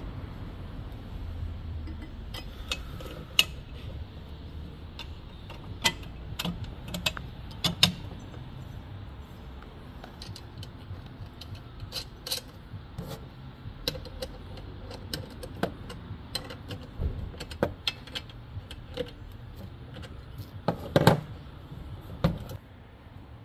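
Irregular clicks, clinks and knocks of parts and tools being handled and fitted while a Parker PGWT-5200 wheeled strimmer is assembled, with a louder cluster of knocks near the end.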